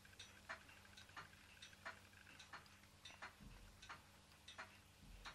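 Ross yoke low-temperature Stirling engine running slowly, its linkage giving faint, regular light clicks about three times a second, alternately stronger and weaker. Two soft low thumps come in the second half.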